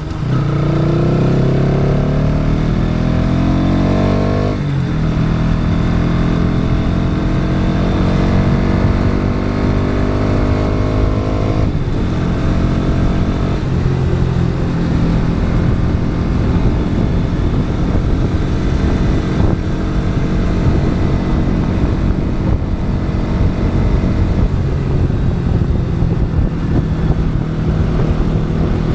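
Pulsar NS200's single-cylinder engine pulling hard through the gears. The revs climb for about four seconds and drop sharply at an upshift, then climb again to a second shift about twelve seconds in. After that the engine holds a fairly steady note.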